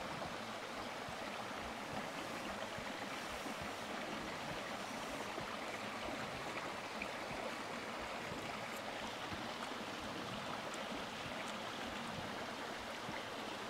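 Steady rush of a rocky stream, water flowing over stones.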